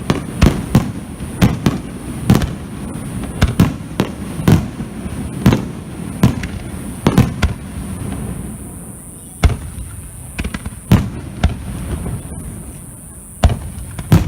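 Fireworks bursting in a rapid, irregular run of sharp bangs, several a second. After about eight seconds they thin out to a few single booms.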